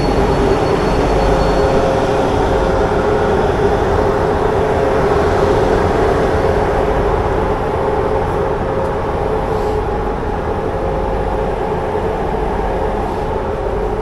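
Passenger train running on the rails: a steady, loud rumble with a constant hum. A thin high wheel squeal stops about two seconds in.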